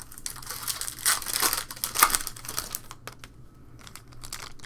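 Crinkling of a foil trading-card pack wrapper being torn open and handled. It is loudest in the first couple of seconds and dies down to faint rustles after about three seconds.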